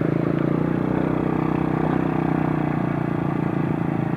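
Small motorcycle engine running at a steady speed while riding, its note holding even pitch throughout, with road and wind noise over it.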